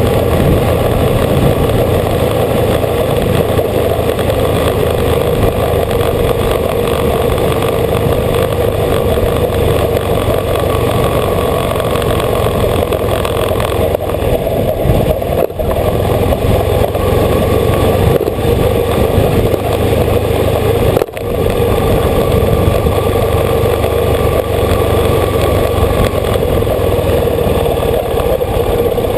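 Old motorcycle's engine running steadily on the move, heard from a camera mounted on the bike; the sound dips briefly twice, about halfway and about two-thirds of the way through.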